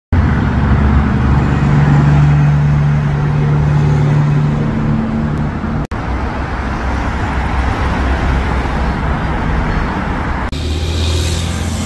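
Road traffic with the low, steady drone of semi-truck diesel engines as tractor-trailers and cars pull through an intersection. The sound breaks off abruptly about six seconds in and changes again near the end.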